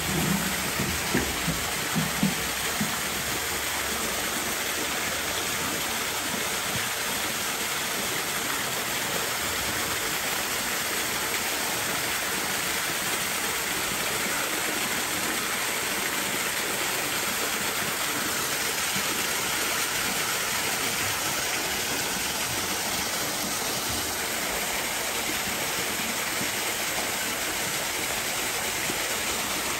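A steady rushing noise, like running water, holding an even level throughout; music fades out in the first two or three seconds.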